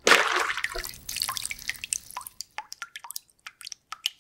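A splash of liquid, then a run of single drops plinking, coming further apart toward the end.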